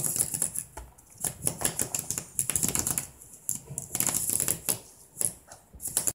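Rapid clicking and rattling of a Magnetact toy animal, a cardboard-and-paper animal backed with magnetic rubber sheet, as it is pushed across a magnetic rubber sheet. The clicks come in runs with short pauses between them.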